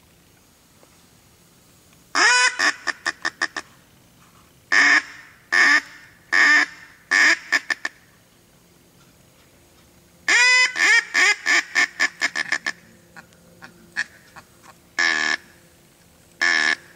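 Loud mallard-style duck quacking. About two seconds in comes a run of quacks, a long first one followed by shorter, fainter ones, then four single quacks a second or so apart. A second descending run follows about halfway through, and two longer single quacks come near the end.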